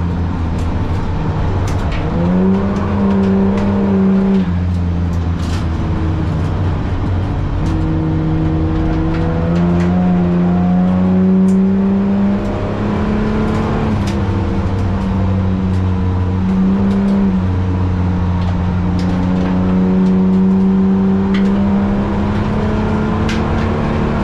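Holden VT V6 engine pulling hard under load on a lap dash. Its pitch climbs through the revs and drops back at gear changes and lifts, several times over.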